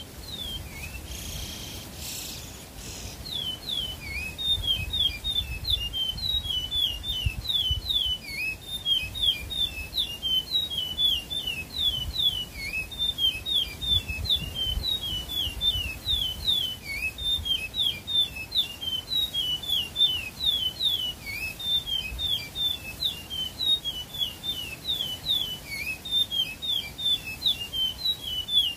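Caged songbird singing a long, unbroken run of short, quick whistled notes that sweep up and down, several a second. There is a brief rustle in the first few seconds before the song starts.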